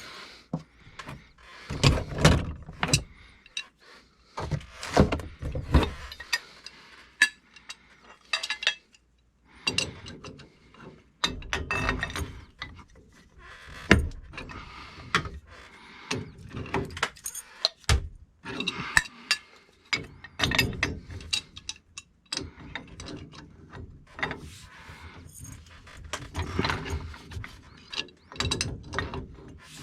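Hand tools working on the pressure reducing valve's pipe fittings: irregular metallic clicks, ratcheting and scraping with occasional knocks.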